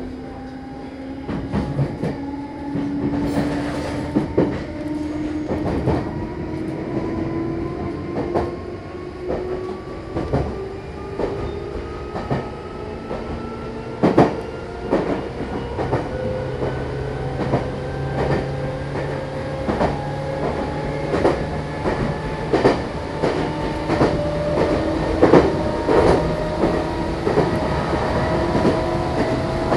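Meitetsu electric train heard from inside the passenger car, picking up speed: the traction motor whine rises steadily in pitch, over a running rumble with wheels clicking over rail joints.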